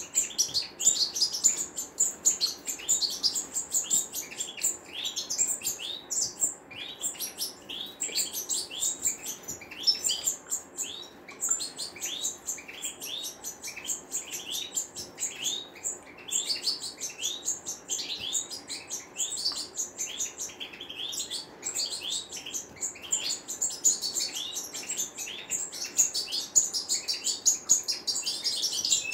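European goldfinches twittering, a continuous fast run of short high chirps with no real pause.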